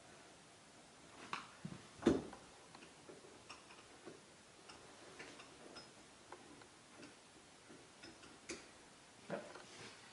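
Scattered light clicks and ticks of small metal parts handled by hand as a nut and washer are started on the bolt at the bottom of a motorcycle fork held in a vise, with one louder knock about two seconds in.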